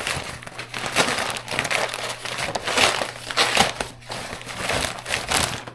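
Packaging crinkling and rustling as parcels are unwrapped by hand, with an uneven, crackly rhythm and louder crunches about one, three and three and a half seconds in.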